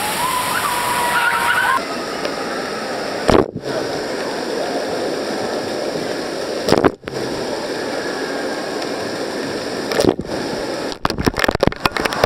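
Water play structure pouring and spraying: a steady rushing and splashing of heavy water falling and jets spraying. The sound breaks off for an instant about every three seconds, then several times in quick succession near the end.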